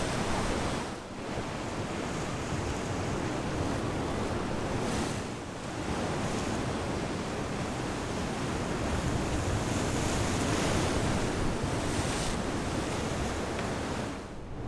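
Rough ocean surf: waves breaking and washing up the beach in a steady rush, briefly dipping twice.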